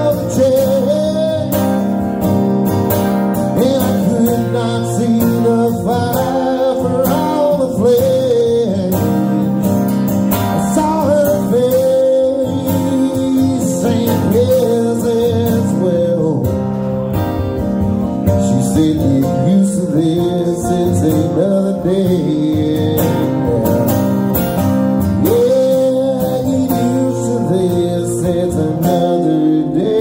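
A man singing with his own strummed acoustic guitar in a live solo performance of a slow country song, the voice holding and bending long notes over steady strummed chords.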